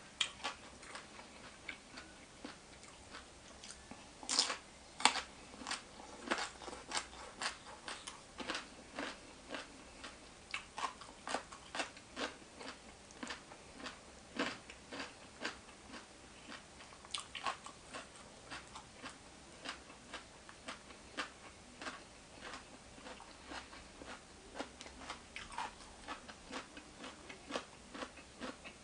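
Close-up eating sounds: a person chewing and crunching a spicy papaya salad, with irregular wet clicks and smacks several times a second. The loudest bites come a little after four seconds in.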